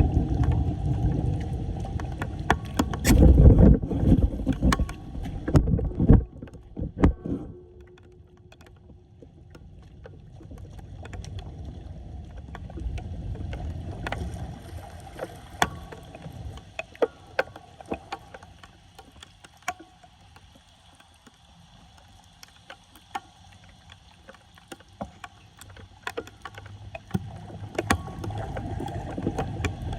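Floodwater sloshing and draining at a clogged street drain, with scattered knocks and clicks. It is loudest for the first several seconds, quietens, then swells again near the end.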